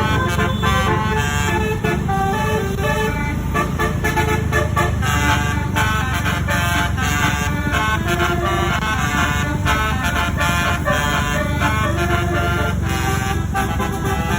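Basuri telolet bus horn, a multi-tone musical horn with 42 notes, playing a quick melody of short stepped notes over a steady low rumble.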